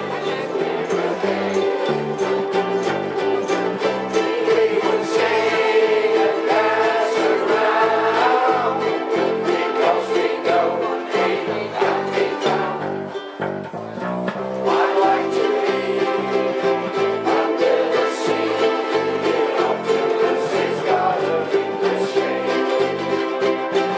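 A ukulele band strumming ukuleles and guitars in a steady rhythm, with group singing and a bass line underneath. The playing dips briefly about thirteen seconds in, then picks up again.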